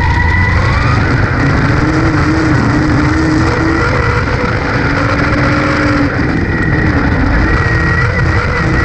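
Dirt-track race car's V8 engine running hard at race speed, heard from inside the cockpit over heavy road and wind noise. The engine note falls a little midway and climbs again through the turns.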